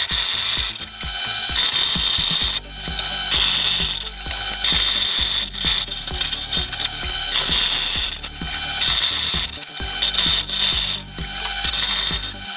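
Bandsaw running and cutting a thin metal sheet: the blade teeth chatter through the metal, with a higher screech that comes and goes as the sheet is fed into the blade.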